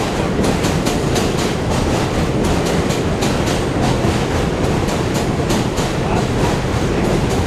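Subway train rolling along the track with a steady rumble, its wheels clacking over rail joints about two to three times a second.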